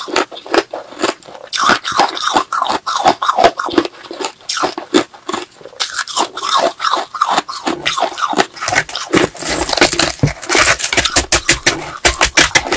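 Close-miked crunching of frosty balloon ice being bitten and chewed: a fast, uneven run of crisp crunches that comes thickest near the end.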